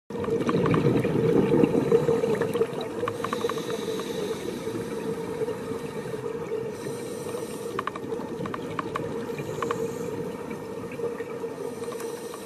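Underwater sound recorded by a diving camera: a steady hum under a rushing wash of water noise, loudest in the first two seconds, with scattered short clicks.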